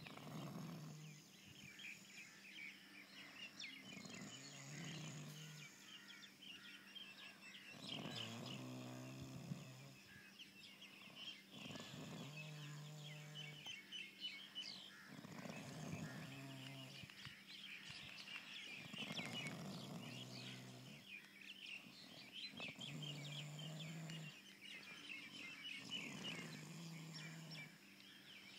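Sleeper snoring, one low buzzing snore about every three to four seconds, with high chirping throughout.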